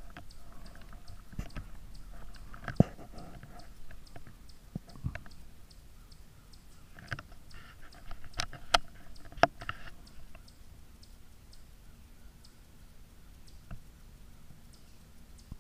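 Scattered clicks and knocks of a .17 HM2 rifle and its scope-mounted camera being handled while aiming, with one sharp knock about three seconds in and a cluster of sharper clicks a little past the middle.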